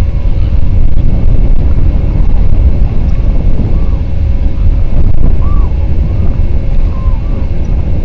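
Strong wind buffeting an outdoor microphone, a loud, heavy low rumble. A few faint short calls from waterbirds come through in the second half.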